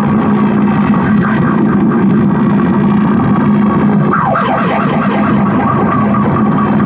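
Noise-electronics improvisation from drone synths and effects: a dense, distorted drone with a steady low hum underneath. About four seconds in, a flurry of quick falling sweeps cuts through.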